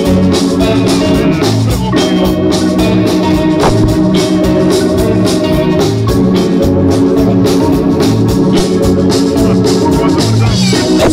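Live band music led by an organ-toned electronic keyboard, with electric guitar over a steady beat.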